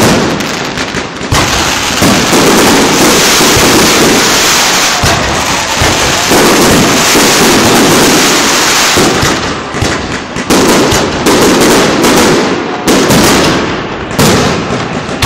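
Aerial fireworks display: a continuous barrage of shell bursts, with unbroken crackling for much of the first half and separate rapid bangs after. Very loud throughout.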